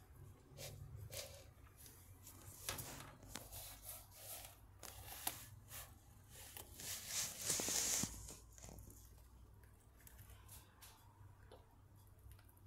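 Dwarf hamster nibbling seeds: faint, scattered small crunching clicks over a low steady hum, with a louder rustling hiss about seven to eight seconds in.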